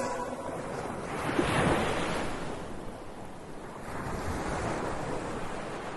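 Ocean surf: waves breaking and washing up the beach, swelling twice, about a second and a half in and again around four seconds, with wind on the microphone.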